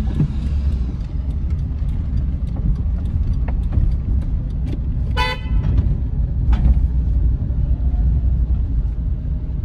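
Low, steady rumble of a car's engine and road noise heard inside the cabin as it creeps along at low speed, with one short horn toot about five seconds in.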